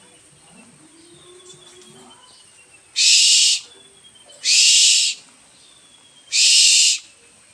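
An owl giving three harsh hissing screeches, each about half a second long and a second or so apart, starting about three seconds in.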